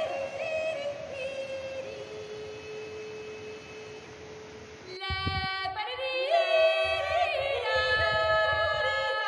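Background music of wordless, singing-like held notes that slide slowly downward over the rush of a fast mountain stream. About five seconds in, the stream sound stops and the music moves into a fuller passage of layered held notes.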